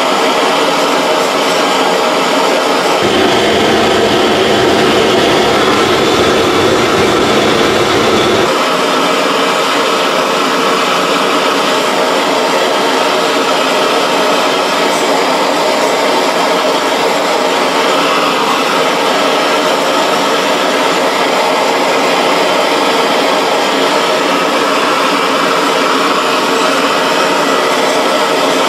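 Gas blowtorch burning with a steady rushing roar while it heats a joint for silver soldering. A deeper rumble joins in from about three seconds in to about eight seconds in.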